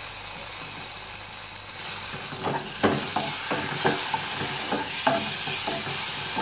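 Sliced onions and chopped tomato sizzling in hot oil in a black nonstick pan. From about two seconds in, a wooden spatula stirs and knocks against the pan two or three times a second.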